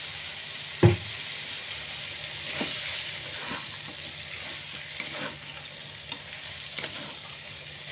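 Chicken pieces and chicken feet sizzling in a wok of spice-paste sauce with a little water just added, stirred with a plastic spatula that scrapes and taps against the pan. One loud knock about a second in, with fainter clicks after it.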